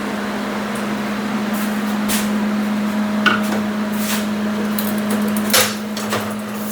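ArcDroid CNC plasma torch cutting 1/4-inch steel plate: a steady hiss of the arc and air under a constant low hum, with a few sharp pops, the loudest about five and a half seconds in.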